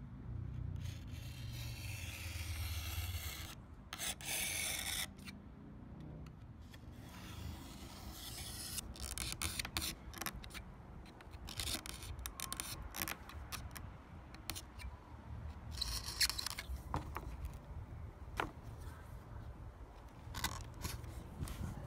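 Utility knife slicing through a sheet of leather, trimming it along the edge of a pine paddle: a series of irregular scraping cuts with short pauses between them.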